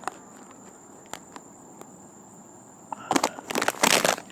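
Crickets trilling steadily with a few faint clicks. About three seconds in comes roughly a second of loud rustling crunches, which is the loudest sound.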